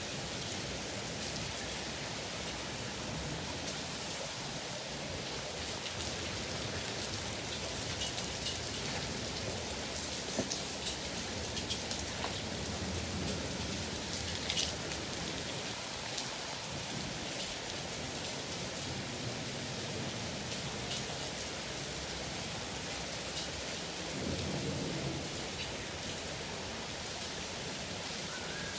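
Heavy rain pouring steadily, with sharp ticks of drops striking hard surfaces, most of them in the middle, and a low rumble near the end.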